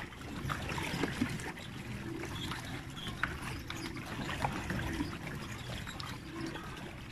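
Water trickling and lapping around a pedal-powered water bike moving on a lake, with a few small scattered clicks.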